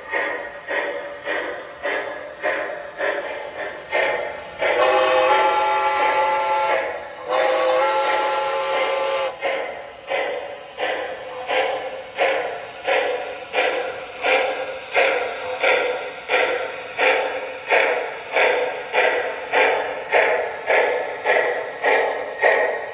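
Model steam locomotive sound system on an MTH CNJ P47 Pacific playing a custom steam sound file through its speaker: steady exhaust chuffs, quickening slightly, with two long blasts of a chime whistle a few seconds in.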